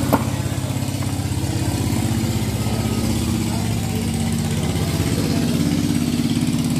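Small motorcycle engine idling steadily. A single cleaver chop into fish lands just after the start.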